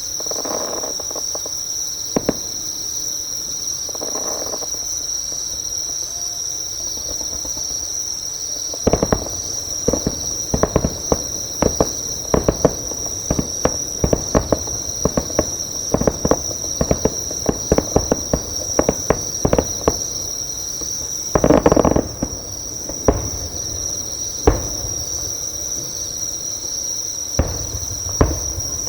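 Insects chirping in a steady, high continuous trill close by, with distant fireworks going off. A couple of dull, echoing booms come early, then a dense run of sharp bangs and crackles from about nine seconds in to a big burst near twenty-two seconds, with a few scattered bangs after.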